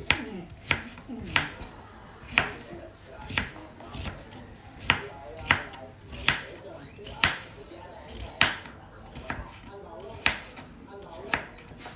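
Kitchen knife chopping winter melon on a wooden cutting board: the blade cuts through and knocks sharply on the board about once or twice a second at an uneven pace.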